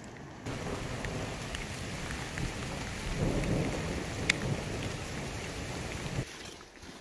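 Rain with wind buffeting the microphone, swelling into a low rumble a little past the middle, with a few sharp ticks. It starts about half a second in and cuts off abruptly about a second before the end.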